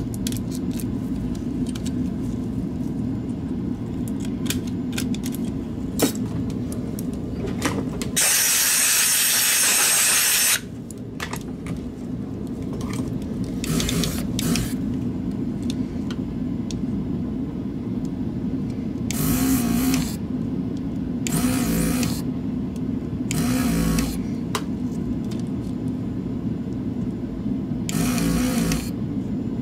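Steady electric hum of bench repair equipment, broken by bursts of rushing air: one loud hiss of about two and a half seconds about eight seconds in, then several shorter bursts in the second half. The bursts are typical of a desoldering gun's vacuum pump sucking out solder while the old mouse switches are removed.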